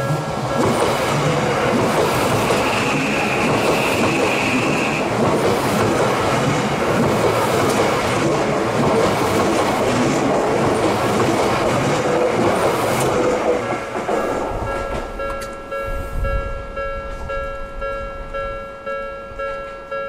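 Odakyu Romancecar 70000-series GSE electric express train running past close by, a loud rush of wheel and running noise that fades about fourteen seconds in. A level-crossing warning bell rings in a steady pulsing pattern, covered by the train and plainly heard again once it has gone by.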